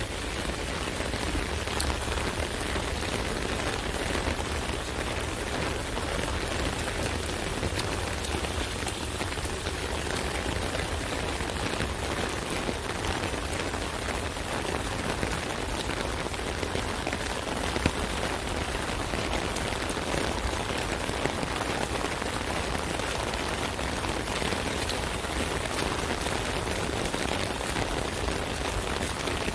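Steady rain pattering on an umbrella canopy, a dense, even patter of drops, with one louder drop a little past the middle.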